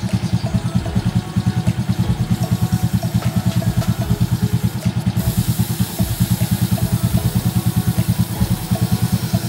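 Motorcycle engine idling in gear on its stand, turning the rear wheel and chain: a steady low putter of about nine pulses a second.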